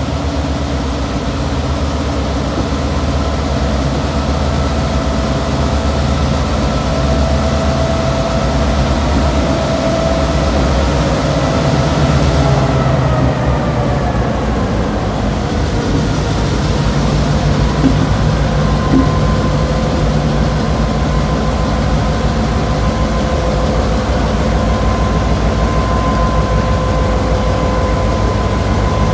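Two EMD GP38-2 diesel-electric locomotives passing slowly at restricted speed, their 16-cylinder EMD 645 engines running with a steady low drone. A whine over the engines drops in pitch about halfway through as the units go by.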